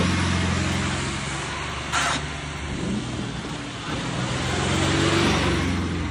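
Tractor diesel engine running hard under load. The engine note fades about a second in and swells again near five seconds, with one short sharp knock about two seconds in.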